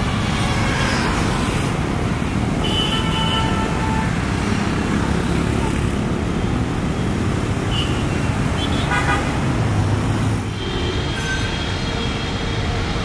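Steady road-traffic noise with a few short vehicle-horn toots.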